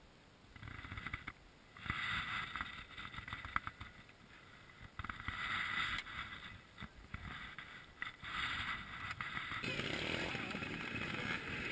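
Several trials motorcycle engines running and being blipped nearby, the sound swelling and dropping back several times and growing busier and louder near the end.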